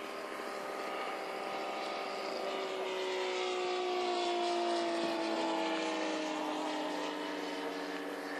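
Saito FG-84 R3 three-cylinder four-stroke radial engine, fitted with a Keleo scale muffler, running at flight power in a giant-scale RC FW190 making a flying pass. Its drone swells to its loudest about halfway through, and its pitch drops steadily as the plane goes by.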